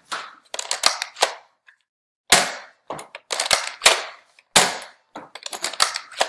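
NERF N-Strike Elite Strongarm (Sonic Fire) dart blaster being primed and fired dart after dart: a rapid series of sharp plastic clacks and pops, some in quick clusters.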